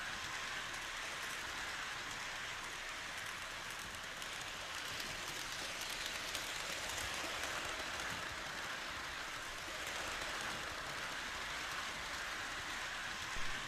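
O-scale model freight cars rolling along three-rail track: a steady, even rolling noise of wheels on the rails with faint clicks.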